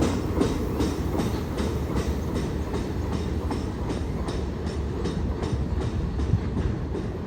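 Freight train cars rolling past with a steady low rumble and an even clickety-clack of wheels over rail joints, a few clicks a second, easing slightly toward the end.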